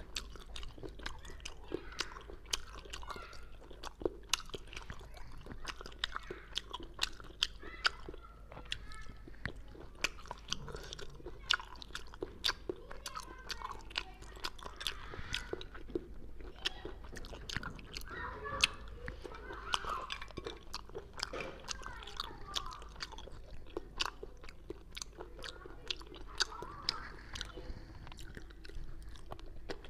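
Close-miked eating of sea snails ('abalone snails') in chilli broth: wet chewing, with many sharp, irregular mouth clicks and smacks as the snail meat is sucked out and eaten.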